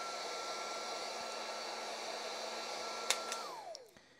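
Makita cordless heat gun's fan motor running steadily on its cool-down setting, fan only with the heater off: a steady rush of air with a constant whine. About three seconds in there are two clicks, and then the motor winds down, its pitch falling, and stops.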